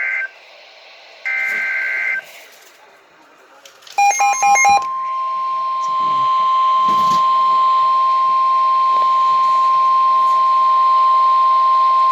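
Emergency Alert System end-of-message data bursts: two short raspy digital bursts about a second apart, closing the first warning. About four seconds in, a short run of electronic beeps, then the National Weather Service warning alarm tone starts, a single steady tone that holds to the end, opening the next severe thunderstorm warning.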